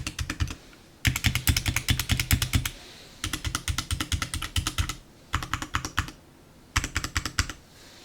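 HyperX Alloy 60 mechanical keyboard being typed on quickly, rapid key clicks in five runs with short pauses between them; the longest runs come about a second in and again after about three seconds.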